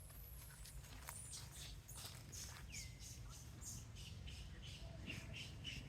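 Short high-pitched animal chirps repeated about three times a second, starting about halfway through, with one single downward-sliding call shortly before, over a low steady rumble.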